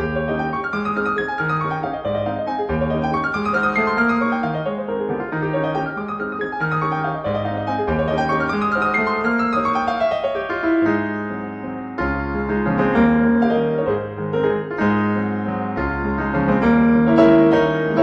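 Background piano music, a steady flowing accompaniment with a regular bass line.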